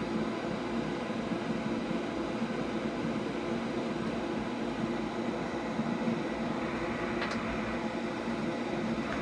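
Fume extractor fan running with a steady whoosh of air, with a couple of faint ticks near the end.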